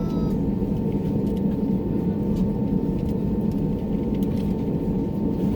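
Cabin noise inside an Airbus A321neo on the ground before takeoff: a steady low rumble with a constant hum over it, as the airliner taxis with its engines running.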